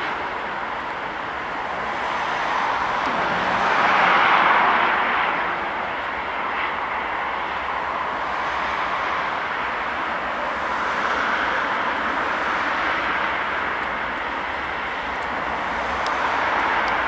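Antonov An-124's four turbofan engines running loud, a steady jet rush that swells about four seconds in and again near the end.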